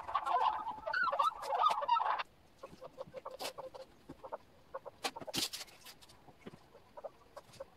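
Domestic fowl clucking for about two seconds, then the sound drops off suddenly to faint scattered clicks.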